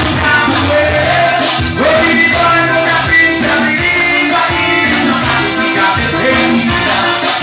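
Forró band playing live, with a voice singing over a steady beat.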